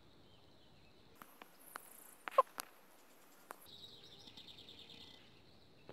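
Faint outdoor ambience with a steady high insect trill. A few light clicks and rustles of handling come in the middle, the loudest a little over two seconds in.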